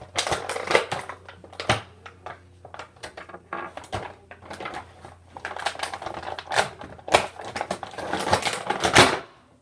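Plastic action-figure packaging crinkling and clicking in an irregular run of crackles as the figure and its accessories are pulled out, loudest near the end.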